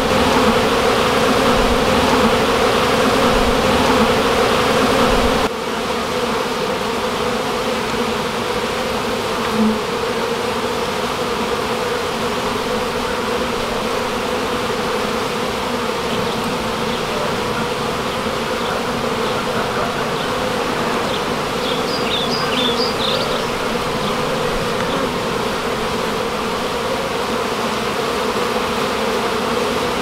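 Steady buzzing hum of a large honey bee colony stirred up while it is cut out of a wall void. The hum drops slightly in level about five and a half seconds in.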